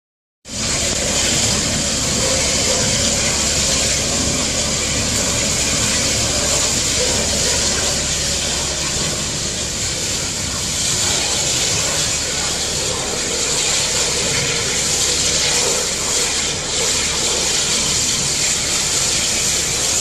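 Natural gas jetting and burning from a ruptured gas line: a loud, steady rushing hiss.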